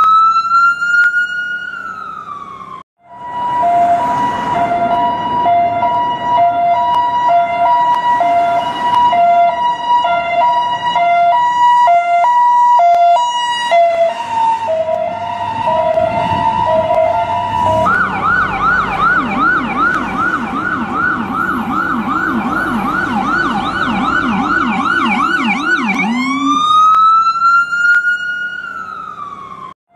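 US ambulance siren switching between patterns. A slow wail that rises and falls cuts off about three seconds in. It is followed by about fifteen seconds of alternating between two steady tones, then a fast yelp of rapid up-and-down sweeps. A new slow wail rises and falls near the end.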